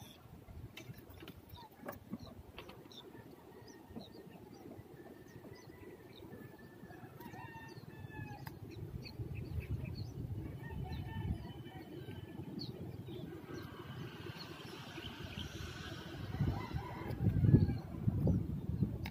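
Chickens clucking and a rooster crowing faintly, over a low rumbling noise that grows louder near the end.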